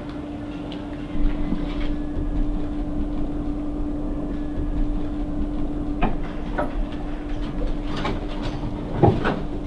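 A steady hum over a low rumble, with a few short knocks and handling sounds near the end as things are moved about.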